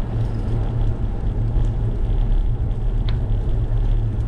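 Wind buffeting the microphone of a GoPro on a moving bicycle: a steady low rumble, with a single short click about three seconds in.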